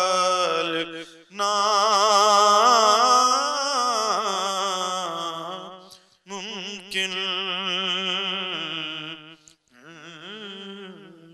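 A man singing a naat solo into a microphone, drawing out long, ornamented notes with wide vibrato in several phrases. The last phrase is quieter and fades out.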